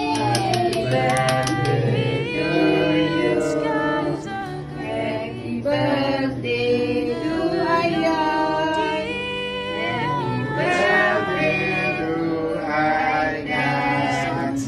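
A group of people singing a birthday song together, with a quick run of hand claps at the start.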